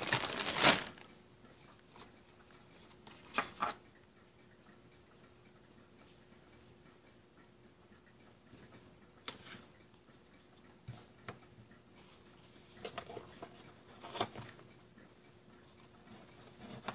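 A plastic bag crinkling briefly just after the start, then scattered faint rustles and light taps of a paper strip being handled and slid into position under the foot of a small plastic mini sewing machine.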